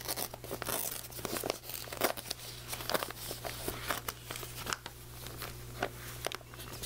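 Newspaper crinkling and tearing as hands unroll and rip open a rolled-up newspaper wrapping, in quick irregular rustles and rips.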